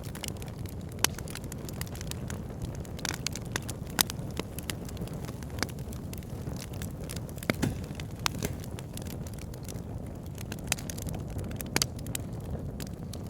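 Wood logs burning in a fireplace: a steady low rumble of flame with irregular sharp crackles and pops, a few louder snaps among them.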